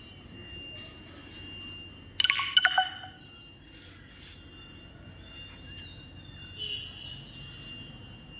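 Birds calling: a loud, harsh call about two seconds in, followed by scattered high chirps, over a faint steady high-pitched whine.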